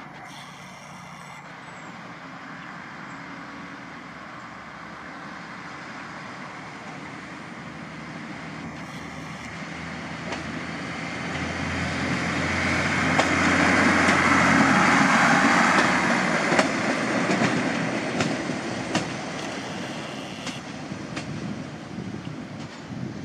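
MÁV Bzmot two-axle diesel railcar passing by: its diesel engine hum and wheel rumble build up slowly to a peak a little past midway, then fade as it pulls away, with a few sharp clicks of the wheels over rail joints as it goes.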